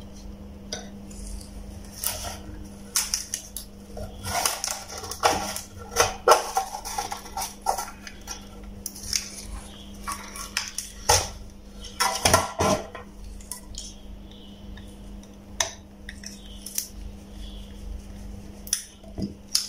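Irregular plastic and metal clicks and clatters as the bug zapper's plastic end caps and wire grid are handled and worked apart by hand, over a steady low hum.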